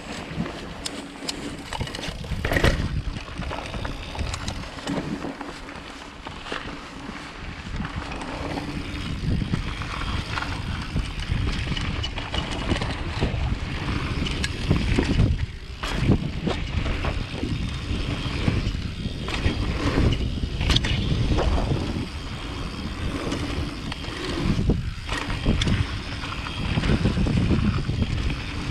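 Mountain bike descending a downhill trail at speed: continuous rush of tyres over dirt and rocks with the bike rattling, and several sharp knocks as it takes hard hits, a few of them around the middle.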